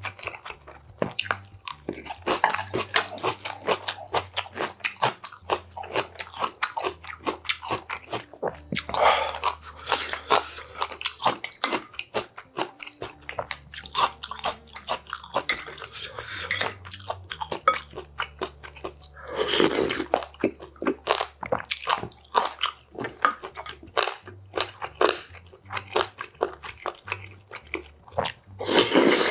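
Close-miked chewing and crunching of kimchi, with a few loud slurps of clam soup broth from a spoon.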